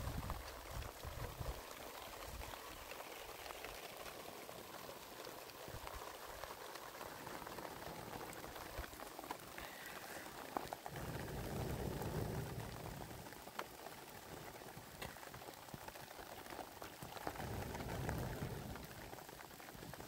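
Open wood fire burning under a covered cooking pot: a steady hiss with scattered small crackles. Two low rumbling swells come and go, about halfway and near the end.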